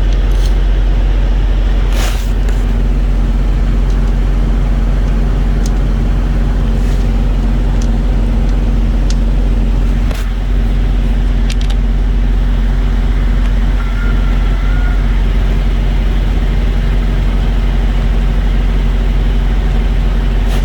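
An engine idling steadily with a deep, even hum, and a few sharp clicks and knocks of tools or metal parts being handled.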